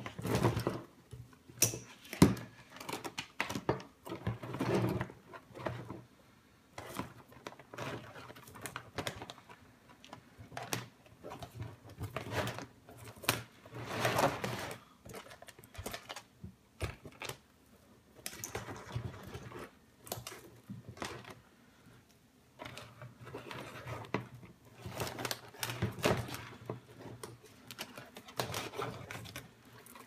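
Loose wires of a stripped Subaru engine wiring harness being handled, pulled apart and sorted by hand, rustling, scraping on the concrete floor and clicking irregularly, with one sharp click about two seconds in.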